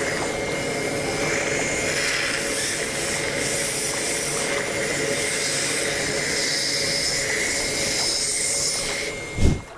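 Dental suction and an air-water syringe giving a steady rushing hiss with a faint whistle over the teeth. A single low thump near the end, after which the hiss cuts off.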